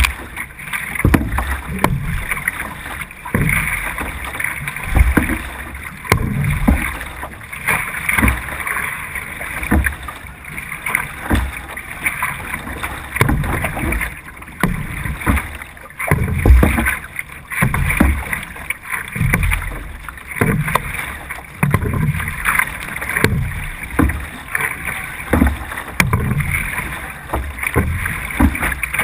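C1 sprint canoe paddled at racing pace: a splash of the blade catching the water and a surge of water rushing along the hull about once a second, stroke after stroke.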